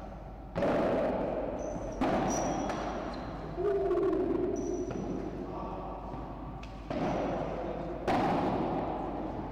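Padel ball being struck by rackets and bouncing off the court: five sharp knocks at uneven intervals, each ringing on with echo from the hall.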